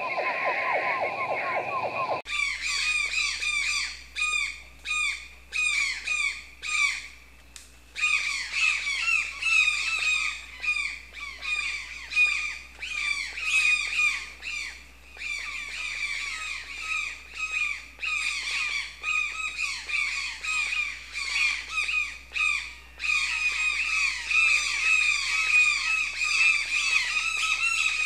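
A flock of parakeets squawking in quick, shrill, overlapping calls, starting about two seconds in. Before that come low, rapidly pulsing frog calls.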